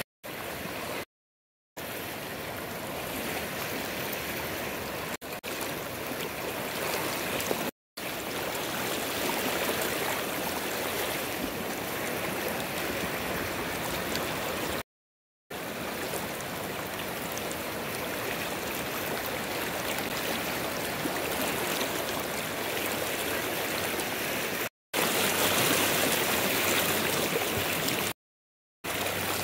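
River water flowing steadily with a constant rushing sound. It drops out to dead silence several times for a moment, at edit points.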